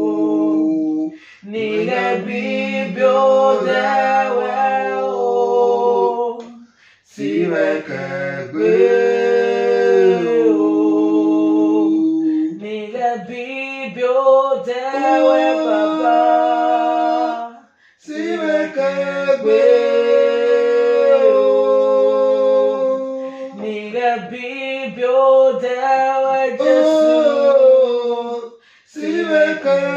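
A man and a woman singing a song together in long phrases, with short breaths between them.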